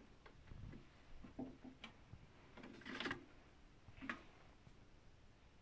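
A few faint plastic clicks and taps, about three spaced a second or so apart, as a cassette tape is handled at a cassette deck's open tape well.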